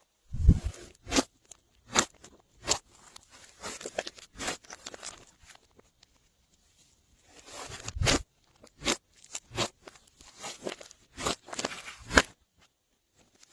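Glossy slime being worked by hand as things are mixed into it, giving irregular sticky pops and crackles, with a short pause partway through.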